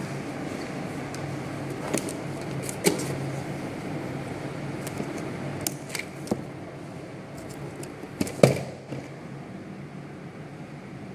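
Cardboard grease-gun box being handled and turned over, giving scattered taps and knocks, the loudest a double knock about eight and a half seconds in, over a steady low background hum.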